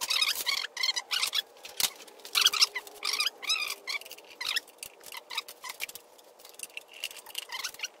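Short, irregular squeaks and scrapes of metal as a Honda Civic manual transmission is rocked and pried off the engine.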